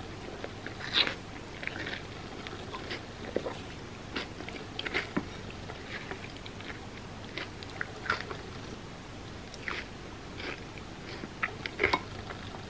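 Close-miked eating of crispy fried mochi bread: irregular crunchy bites and chewing, with a sharp crunch about a second in and a quick cluster of crunches near the end.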